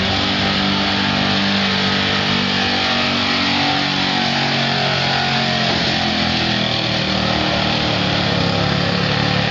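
1979 Chevrolet pickup's big-block V8 running hard at high revs under full load as it drags a pulling sled. The engine note is loud and steady, and its pitch sags a little about four seconds in as the load builds.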